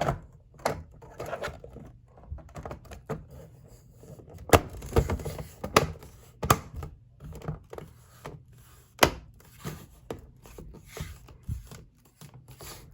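Plastic exit sign parts being handled and fitted together: irregular clicks and knocks, with a few sharper snaps in the middle.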